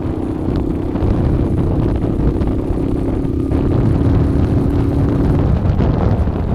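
Motorcycle engine running at a steady pitch while riding, over a heavy low rumble. The engine note fades out about five and a half seconds in.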